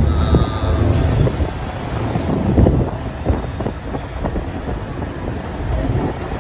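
Moving road vehicle: a steady low engine and road rumble with wind buffeting the microphone.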